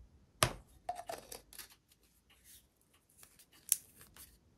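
Scattered small clicks and light scrapes of hobby tools and small model parts being handled on a workbench, with a sharp click about half a second in and another near the end.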